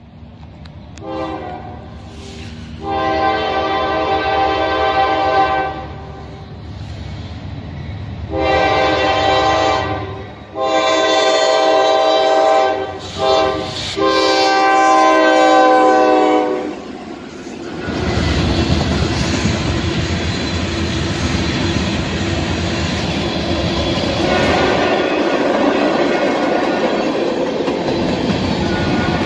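Locomotive air horn with several chimes sounding a run of blasts that ends long, long, short, long, the grade-crossing signal. A little past halfway the train rolls by with a steady rumble and wheels clicking over the rail joints.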